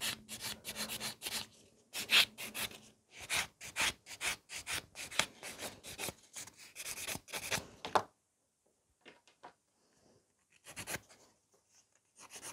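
A nail buffer block and then a nail file rubbed over sculpted nails by hand in quick back-and-forth strokes, several a second, blending the nail around the cuticle area. The strokes stop about two-thirds of the way through, and a few more come later.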